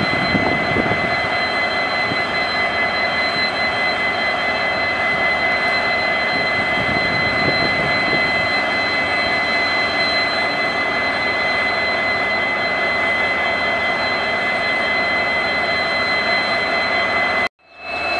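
EMD WDG4 diesel-electric locomotives' 16-cylinder EMD 710 engines idling, with a steady high-pitched turbocharger whine over the engine's running noise. The sound drops out for a moment near the end and comes back with the whine at a different pitch.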